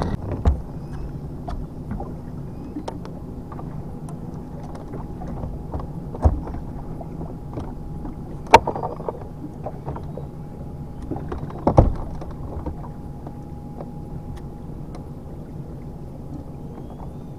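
Bass boat's bow-mounted electric trolling motor running with a steady low hum and a thin steady whine, broken by four sharp knocks, the loudest about eight and a half seconds in.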